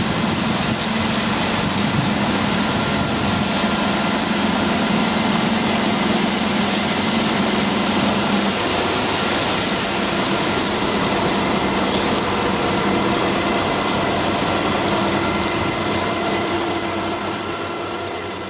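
Drive-through truck wash running on a refuse truck: water spray hissing steadily over the body while the rotating brushes and their hydraulic drive add a steady mechanical hum. One low hum stops about halfway through, and the whole sound fades near the end as the truck leaves the wash.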